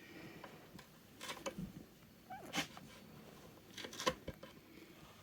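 Faint scattered clicks and knocks of wooden pieces being handled, with a short faint pitched sound about two and a half seconds in.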